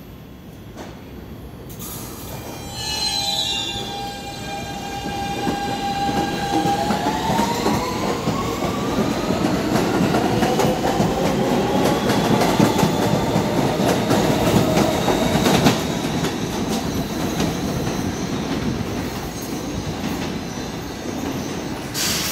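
A subway train pulling out of the station. The motors' whine holds one pitch for a few seconds and then rises steadily as the train gathers speed, over the rumble and clatter of its wheels on the rails. It is loudest as the cars pass close and then fades.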